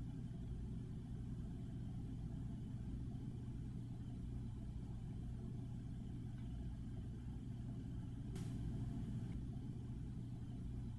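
Faint steady low hum with an even low tone: background room tone. A faint click about eight seconds in.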